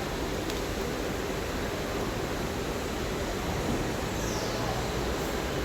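Steady outdoor background noise, an even rush with no distinct events, and a faint high chirp falling in pitch about four seconds in.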